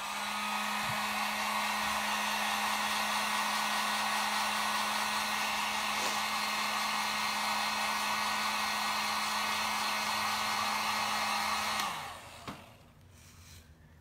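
Electric heat gun running steadily, a blowing whir with a steady hum, as it dries freshly brushed-on paint on a wooden knob. It is switched off near the end and winds down.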